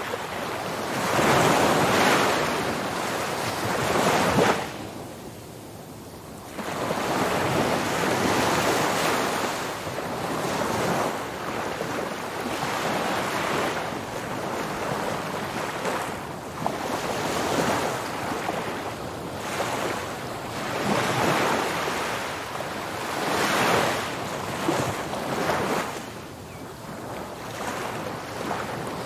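Ocean surf breaking on a beach: a rushing wash of water that swells and falls back every few seconds, with one clear lull about five seconds in.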